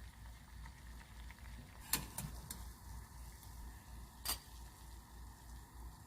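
A few light clicks of kitchen utensils over quiet room tone with a low hum: a quick pair about two seconds in and one more a little after four seconds.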